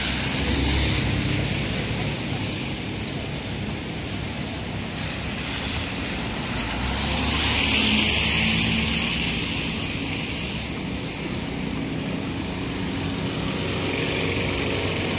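City street traffic on rain-wet roads: a steady hiss of tyres on wet pavement with vehicles passing, the loudest pass about eight seconds in.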